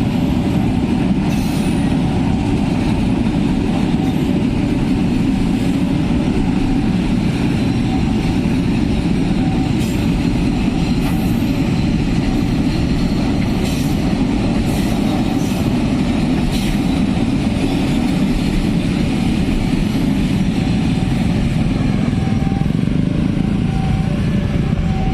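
A train passing over a level crossing: a steady, loud rumble of wheels on the rails with scattered clicks, lasting the whole stretch.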